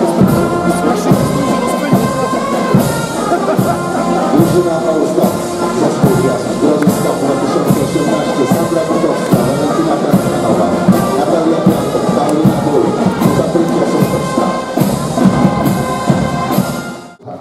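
Music with a steady beat, fading out near the end.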